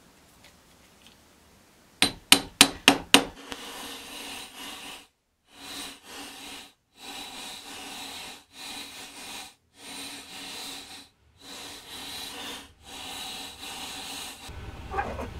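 Ball-peen hammer striking copper wire on a steel bench block: five sharp blows about four a second, which are the loudest sounds here. Then the hammering is sped up and the blows run together into a continuous rasping clatter, in stretches separated by short breaks.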